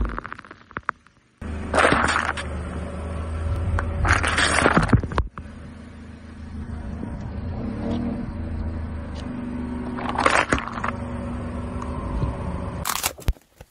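Aluminium soda cans being crushed under a car's tyre on asphalt, bursting and spraying soda: a few short crunching, hissing bursts over a low engine rumble.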